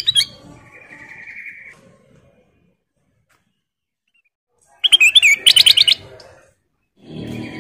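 Kutilang emas (ruby-throated bulbul) calling: a sharp call and a short buzzy trill, a pause of a couple of seconds, then a loud run of quick rising chirps. A low rumbling noise comes in near the end.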